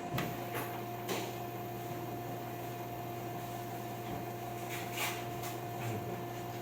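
Steady electrical hum in two even tones, with a deeper hum starting just after the beginning. A few light clicks come near the start and once about five seconds in.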